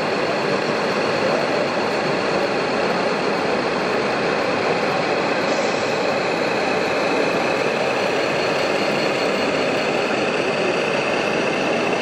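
Steady, unchanging diesel-truck engine sound from radio-controlled model trucks running at low speed, close to an idle.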